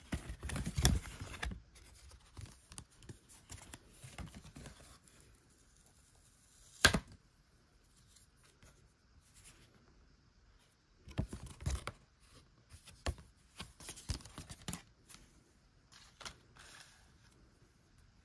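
Paper and thin cardstock being handled: rustling and crinkling of a torn paper envelope and a folded card mailer being opened, with one sharp snap about seven seconds in and several bursts of rustling later on.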